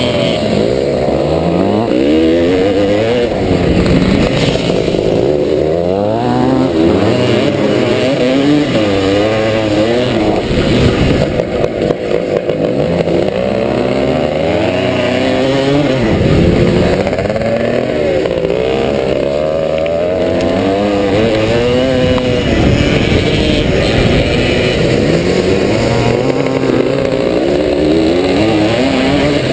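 1977 SWM 250RS two-stroke motocross engine heard from on board under hard riding, its pitch climbing and dropping again and again as the throttle is opened and shut, with a brief choppy drop in loudness near the middle.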